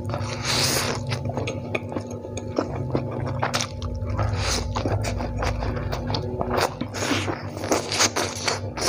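Close-up eating sounds of spicy fried instant noodles: a slurp as the noodles are sucked in about half a second in, then wet chewing with many short lip smacks and clicks. A steady low hum runs underneath.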